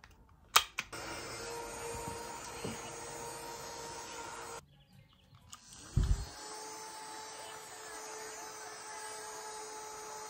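Handheld mini fan switched on with a click, its small motor and blades whirring steadily with a hum. Near the middle it stops, then spins up again with a rising pitch and runs on steadily.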